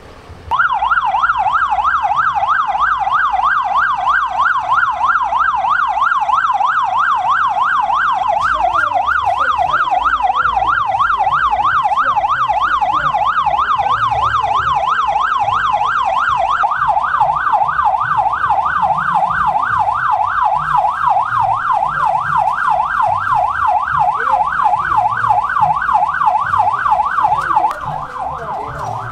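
Electronic vehicle siren on a yelp setting, loud, its pitch sweeping rapidly up and down without pause. It starts about half a second in and drops in level near the end.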